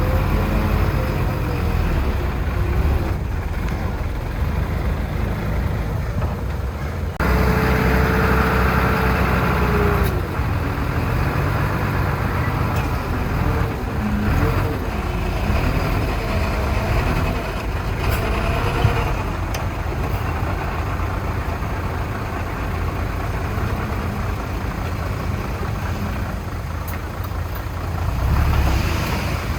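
Heavy diesel machinery working, its engines running steadily, with an abrupt change in the sound about seven seconds in.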